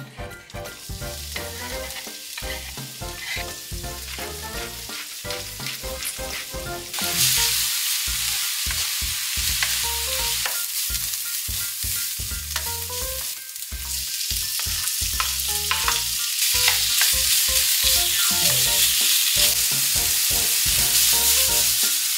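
Chopped onion, and then chicken pieces, sizzling in oil in a nonstick wok while a wooden spatula stirs them, with small scrapes and knocks. The sizzle is light at first, turns loud about seven seconds in, and grows louder again past the halfway point.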